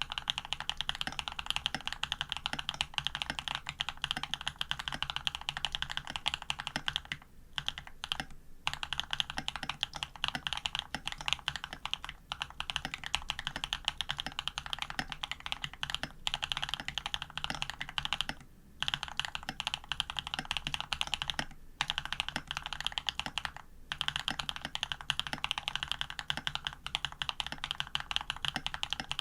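Fast, continuous typing on an AR87 custom mechanical keyboard with lubed Jade cream switches, an aluminium plate and PBT keycaps, broken by a few short pauses.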